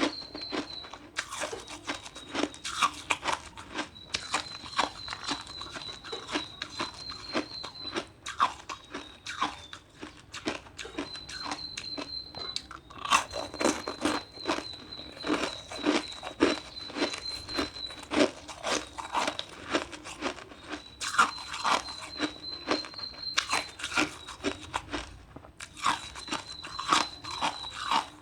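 Ice being crunched and chewed in the mouth, a rapid, irregular run of sharp cracking bites throughout. A thin, high, steady tone comes and goes in the background.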